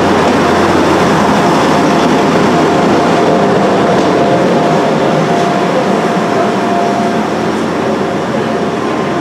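Class 175 Coradia diesel multiple unit moving past along a station platform: its diesel engines running, with wheel and rail noise and a faint steady whine in the middle. The sound eases slightly towards the end.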